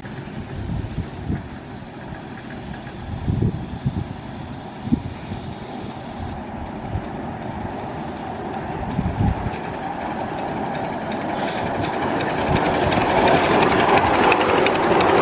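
Miniature ride-on train approaching on an elevated track and coming alongside, its running noise growing steadily louder over the second half. A few low thumps come in the first half.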